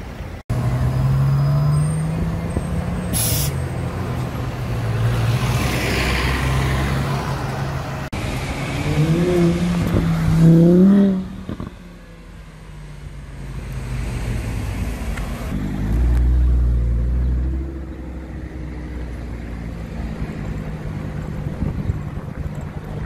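Sports car engines in city traffic, passing and accelerating, including a yellow Audi R8 Spyder's V10. The loudest moment is a hard acceleration, its pitch rising sharply and stopping abruptly about eleven seconds in. A deep low rumble follows a few seconds later.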